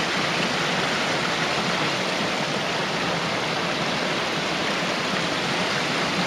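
The upper Bode waterfall, a mountain stream cascading down between mossy boulders, with a steady rush of falling water.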